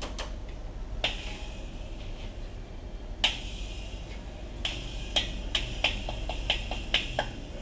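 A child's toy drum kit struck with drumsticks: a few scattered hits, then a quicker, uneven run of about ten strokes over the last three seconds, some hits ringing briefly.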